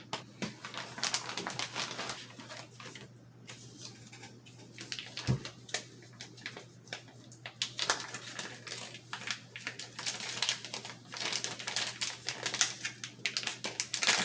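Clear plastic packaging bags crinkling and crackling in the hands as they are handled and picked open, with one low thump about five seconds in.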